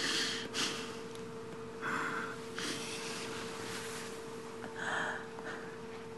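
A person's short breathy exhalations and sniffs, about five of them, over a steady hum.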